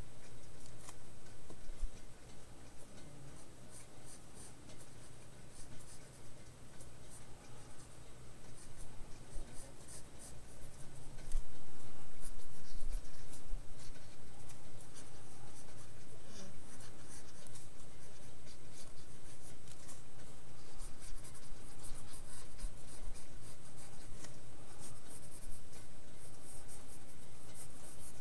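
Pencil scratching on paper in short sketching strokes, over a steady low hum. The hum gets louder about eleven seconds in.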